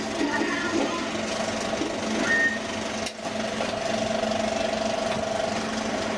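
35mm film projector running steadily, its shutter and film-advance mechanism making a continuous mechanical whir with a fine regular flutter. There is a brief dip about three seconds in.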